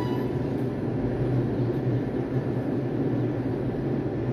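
R142 subway train at an elevated station platform, giving off a steady low hum from its on-board equipment with no wheel or rail noise.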